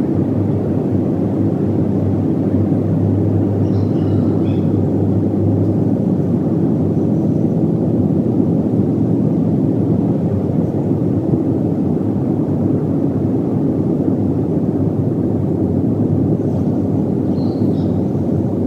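A steady, loud, low rumbling noise outdoors with no clear pitch.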